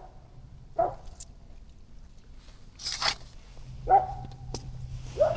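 A dog barking, three separate barks a second or more apart, with a short crunch about three seconds in.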